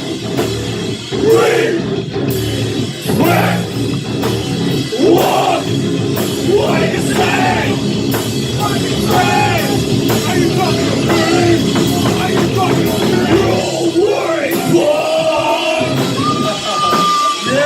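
A heavy metal band playing live, with a dense, heavy wall of distorted sound, steady drum and cymbal hits, and yelled, sung vocals. Near the end the low part of the music drops away.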